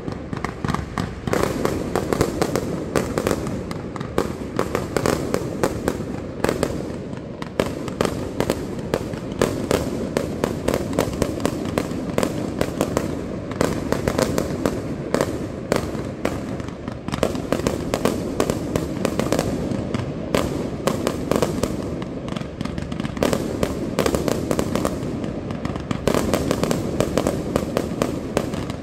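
Aerial fireworks display: a dense, unbroken barrage of shell bursts and crackling stars, many sharp bangs and cracks every second.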